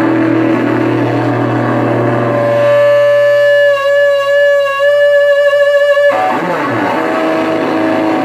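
Electric guitar played through a hand-built Blues Howler tube amp with an EF86 pentode first preamp stage, driven into distortion. Chords and notes give way to one long held note with vibrato, which sustains for about three seconds and is cut off abruptly before lower notes resume.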